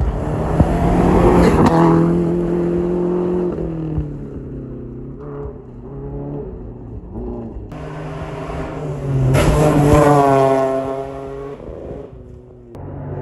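Rally cars passing at speed on a gravel forest stage, engines at full throttle: one goes by in the first few seconds, and another about nine to ten seconds in, its engine pitch falling as it passes.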